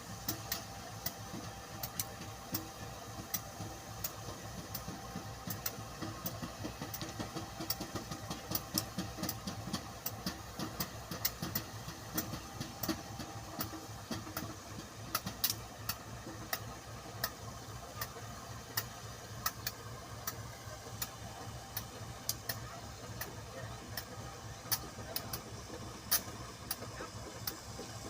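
A diesel locomotive engine running steadily at low revs, with many short, sharp clicks scattered throughout.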